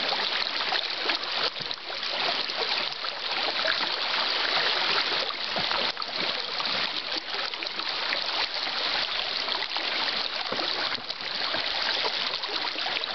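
Shallow river water rushing steadily over a stony riffle and around fallen logs.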